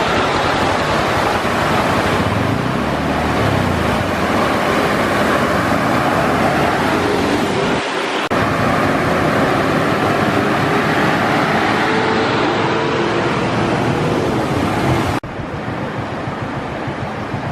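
Floodwater rushing, loud and steady. It cuts off abruptly about eight seconds in and again about fifteen seconds in, quieter after the second cut.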